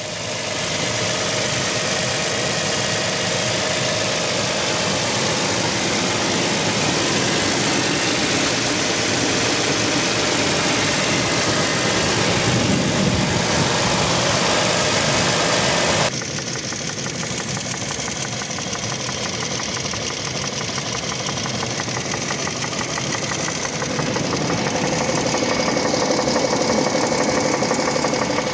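Toyota 1GR-FE 4.0-litre V6 idling with a knock from under the hood that keeps time with the crankshaft speed and is heard only at idle. Forums say many 1GR-FE engines make this sound. The overall noise drops abruptly a little past halfway through.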